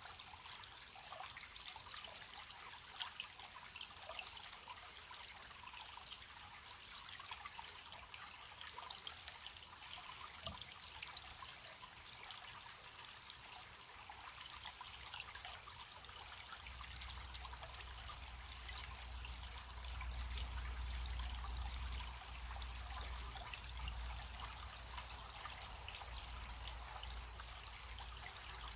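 Small stream trickling and babbling over stones, with crickets chirping in a faint, steady, pulsing high trill. A low rumble joins a little past halfway through.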